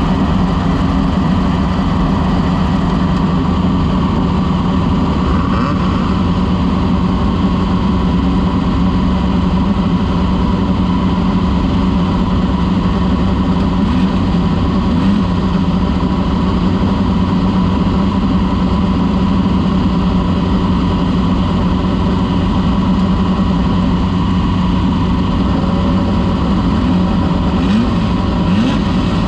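Off-road race vehicle's engine running under load, a steady drone with no breaks or pauses.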